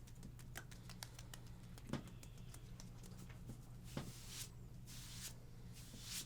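Faint massage sounds of hands working on skin: soft rubbing with many small scattered clicks and taps, two slightly louder soft knocks about two and four seconds in, and a few short swishes in the second half, over a steady low hum.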